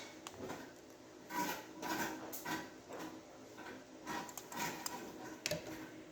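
Plastic model-kit figure parts being handled and pressed together: scattered light clicks, taps and rustles, with a sharper click about five and a half seconds in.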